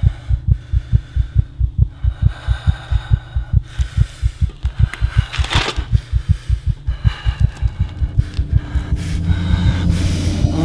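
A fast heartbeat, about two double thumps a second. About three-quarters of the way through, a low drone swells in and the beat fades under it.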